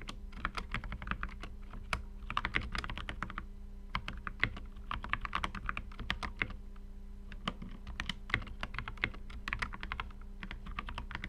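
Typing on a GMMK mechanical keyboard with lubed Halo Clear tactile switches and Flashquark OEM keycaps: quick runs of key clacks with short pauses between them.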